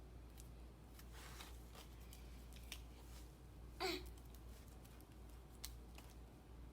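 Quiet, scattered snips and clicks of scissors cutting the plastic ties and rubber bands that hold a new doll's hair in its packaging, with a louder snip about four seconds in.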